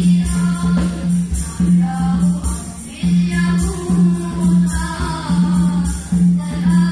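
A male nasyid group singing an Islamic devotional song together, with hand-percussion accompaniment keeping a steady beat.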